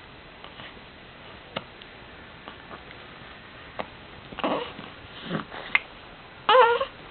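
Hiccups: three sharp single clicks about two seconds apart, with breathy sounds between the last two and a brief high-pitched wavering vocal sound near the end, the loudest moment.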